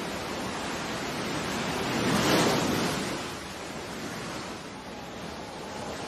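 Sea waves breaking on a shore: a steady rush of surf that swells to its loudest as a wave breaks about two seconds in, then eases back to a softer wash.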